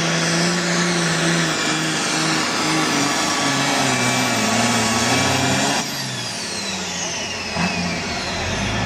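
Diesel pulling tractor running flat out under load as it drags a weight sled, its engine note wavering. A little under six seconds in the engine eases off: the sound drops and a high whine falls away in pitch.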